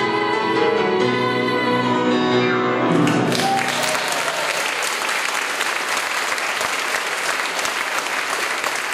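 A female singer holds the final note of a show tune over grand piano, ending about three seconds in, and the audience breaks into sustained applause.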